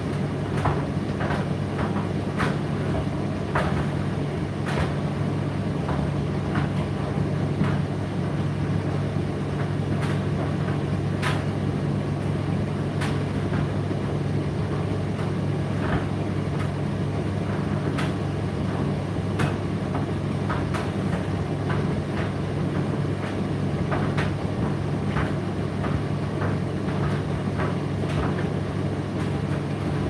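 Indesit IDC8T3 condenser tumble dryer running: a steady motor and fan hum, with irregular light clicks and knocks as the load tumbles in the drum.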